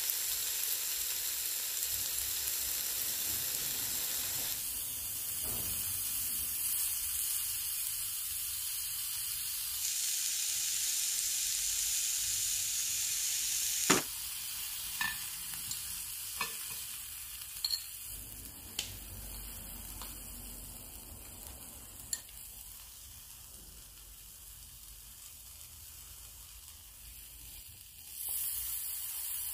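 Black pork sizzling on a hot ridged grill plate, a steady frying hiss. About halfway through, metal utensils click sharply against the plate half a dozen times as the meat is turned and cut. The sizzle grows fainter for a while, then comes back loud near the end.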